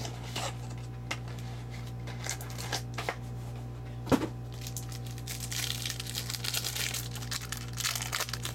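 A trading-card pack being opened by hand: scattered taps and clicks with one sharp snap about four seconds in, then the wrapper crinkling and tearing for the last few seconds.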